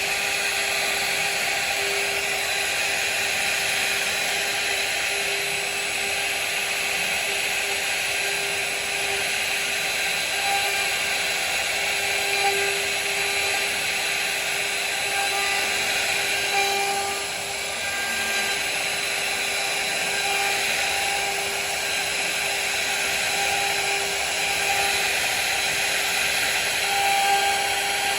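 CNC router spindle running steadily with a constant whine as it cuts wood, easing off briefly about two-thirds of the way through.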